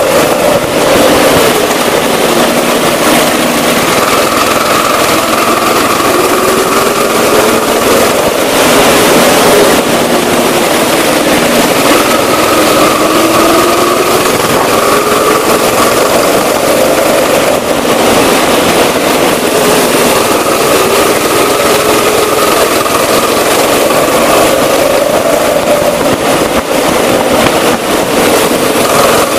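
Rental go-kart's engine running hard under the driver while lapping, its pitch rising and falling with the throttle through the corners.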